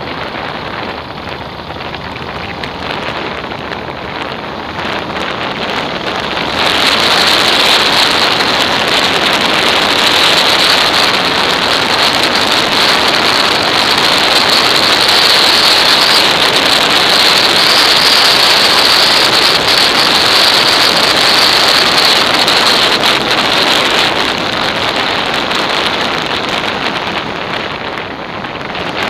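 Wind buffeting the microphone of an action camera on a moving motorcycle: a steady rushing noise with no clear engine note. It swells sharply about six seconds in, as the ride picks up speed, and eases off again near the end.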